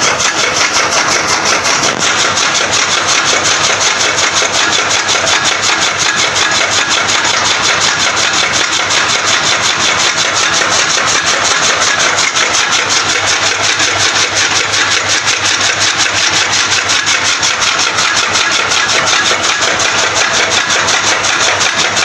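Electric-motor-driven chaff cutter running, its flywheel blades chopping green fodder in a rapid, even rhythm over a steady machine noise.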